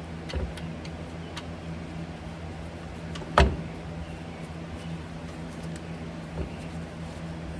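Knocks and light clinks of parts and hand tools being handled while a PTO is fitted to a truck transmission, with one sharp loud knock about three and a half seconds in, over a steady low hum.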